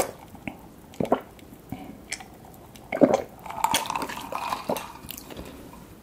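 Close-miked gulping as a person drinks from a cup: three loud swallows, at the start, about a second in and about three seconds in, followed by quieter sounds.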